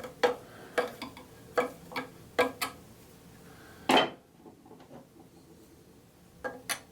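Old Sheffield-made turnscrew working a slotted screw, its steel blade clicking and knocking in the slot in short irregular clicks, with one louder knock about four seconds in. The blade fits the slot poorly and slips and rattles as it is turned.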